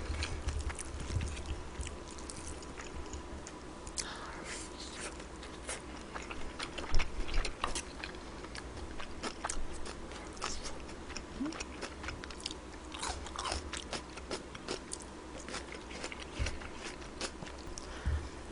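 Close-miked chewing and biting of kimchi fried rice with pork belly: irregular wet mouth clicks and soft crunches, several every second.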